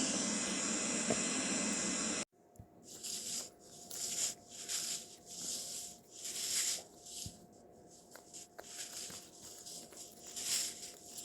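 A steady hiss that cuts off suddenly about two seconds in, followed by a run of soft, irregular hissing swishes, roughly one a second.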